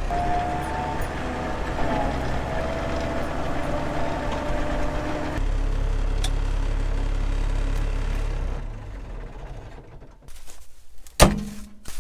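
Vehicle engine running steadily with a wavering whine, used to move field bins. The sound changes abruptly about five seconds in, fades away around nine seconds, and a single sharp knock comes near the end.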